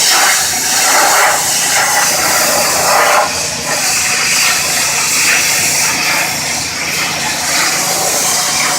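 Pressure washer spraying hot water against the inside of a barbecue pit, cutting through thick built-up grease. A loud, steady hiss of spray that swells and fades every second or so.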